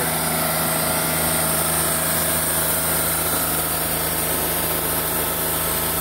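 Portable band sawmill's engine running steadily.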